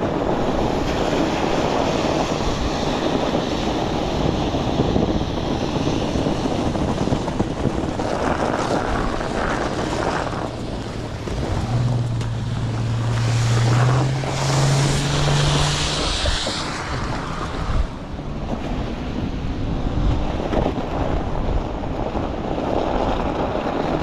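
Wind rushing over the action camera's microphone while riding a dual-motor fat-tire e-bike through snow, with steady rolling noise. A low hum rises in pitch between about 12 and 16 seconds in.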